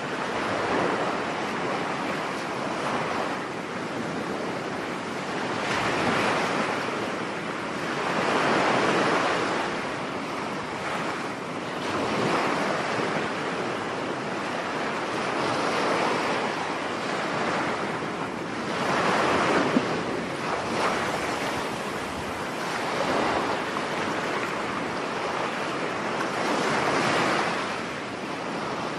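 Rough sea in a storm, waves breaking on a beach and washing back, the surf swelling every three or four seconds over a continuous roar, with wind blowing across the microphone.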